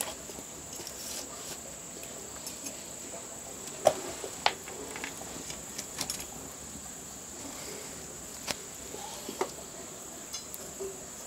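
Short knocks and clatters of sticks and firewood being shifted in the firebox of a wood-fired bath, a handful spread through, the sharpest about four seconds in. Under them a steady high insect trill, typical of crickets.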